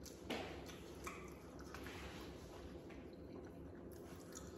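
Faint wet chewing and mouth smacks from eating macaroni and cheese, with a few soft clicks.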